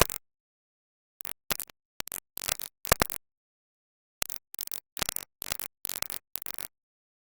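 Glitchy, chopped-up audio: bursts of noise and crackle a fraction of a second long, about three a second, broken by dead silences. The bursts stop for about a second near the start and again for about a second in the middle.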